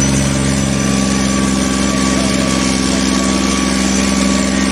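John Deere tractor's diesel engine running loud at steady revs as it turns on its rear wheels with the front end lifted in a wheelie, its pitch holding level.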